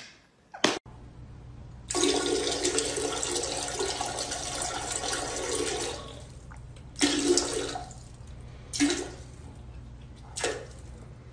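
Water rushing for about four seconds, then three shorter surges of the same sound.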